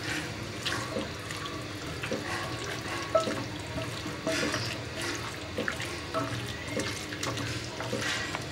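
Hands squishing and kneading raw chicken pieces in a wet spice marinade in a glass bowl: irregular wet squelches and smacks, with no steady rhythm.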